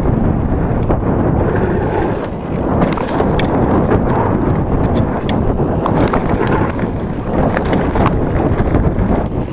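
Wind buffeting the microphone over the rumble of a Giant Trance 1.5 27.5-inch mountain bike's tyres rolling fast down a dirt forest trail, with scattered sharp clicks and rattles from the bike.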